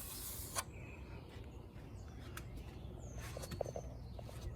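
Faint bird chirps outdoors, with a short rush of noise at the start and a few light clicks and knocks of handling.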